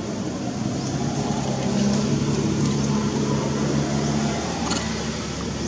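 A motor or engine running steadily with a low hum, which eases off about four and a half seconds in; a few faint clicks sound over it.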